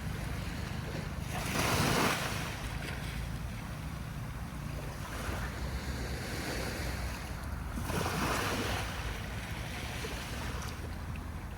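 Sea waves breaking and washing up on a beach: two surges swell up about six seconds apart over a steady wash.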